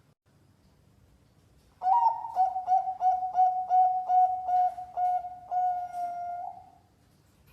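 Zebra dove (perkutut) cooing, starting about two seconds in. It gives one song phrase of about a dozen short, quick coos, then a longer drawn-out final note.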